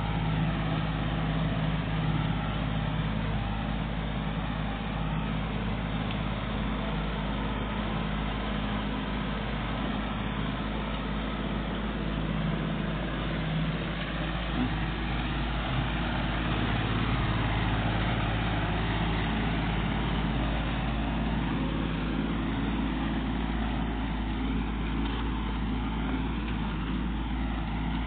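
Kubota compact tractor's diesel engine running steadily as it pulls a landscape rake through loose dirt and roots.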